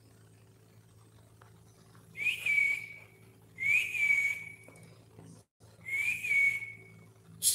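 A person whistling three short notes a second or two apart, each a quick upward slide that settles into a held, slightly breathy tone.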